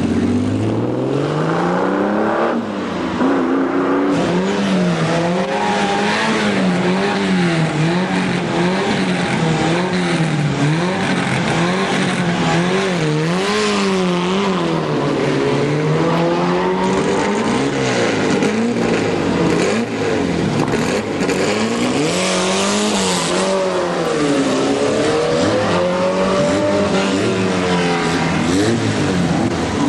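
Racing car engines revving hard over and over, the pitch swinging up and down about once a second, as open-wheel single-seater racing cars drive past. At the start a Lamborghini Countach's V12 accelerates away with a rising note.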